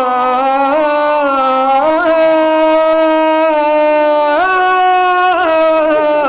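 A man's voice sustaining long sung notes of a nai, a mourning lament, with small ornamental rises and falls in pitch and no clear words.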